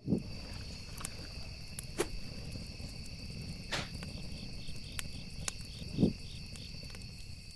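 Crickets chirping steadily over a low rumble, with a few sharp clicks and two low thumps, one near the start and one about six seconds in.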